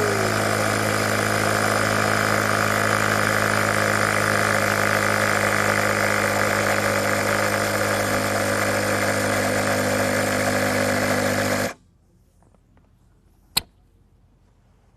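Sea Eagle 2-stage electric turbo pump running steadily, a motor hum with a rush of air, inflating a kayak chamber; it cuts off abruptly near the end, shutting itself off on reaching its set pressure of 3.2 psi. A single sharp click follows shortly after.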